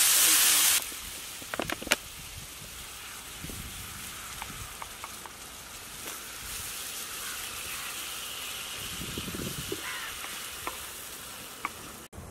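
Tomato and spice masala sizzling in a flat iron pan with a little water just added. A loud hiss cuts off about a second in, leaving a steady, softer sizzle broken by a few sharp clicks.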